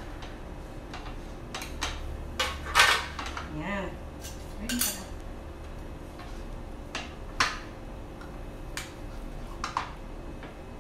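Metal baking pan and a table knife clinking and knocking against a ceramic plate: scattered sharp taps and clicks, the loudest about three seconds in.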